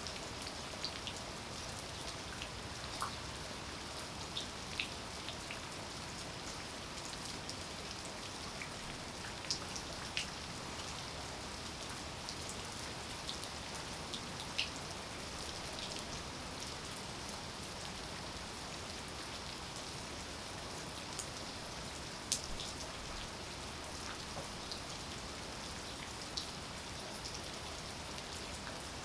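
Steady rainfall, an even hiss with scattered sharp drop ticks, one standing out louder about three-quarters of the way through.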